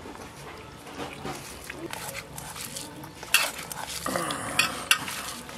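Scattered clinks and knocks of steel plates and hands as people eat rice by hand, the sharpest a little past three seconds in. A short voice-like call is heard about four seconds in.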